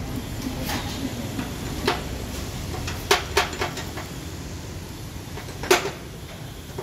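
Sharp metallic knocks and clanks from hand work on an escalator's exposed mechanism, over a steady low rumble. There are a few scattered knocks, three close together about three seconds in, and the loudest one near the end.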